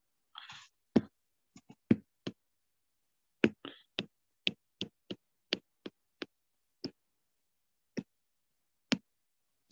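A string of sharp, irregular clicks, roughly two a second, from a stylus tapping on a pen tablet during handwriting, with a couple of brief soft hisses.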